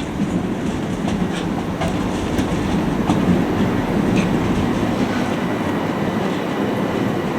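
Southern passenger train running past the platform, a steady rumble of wheels on rail with a few faint clicks.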